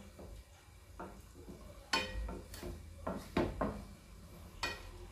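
Wooden spatula stirring cuttlefish in a wet sauce in a metal frying pan, with irregular knocks and scrapes of the spatula against the pan.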